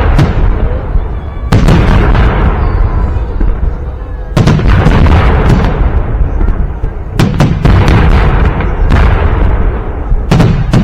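Victory Day fireworks salute: about six loud booming bangs of the salute volleys, spaced one and a half to three seconds apart, each followed by a long rolling rumble as it dies away.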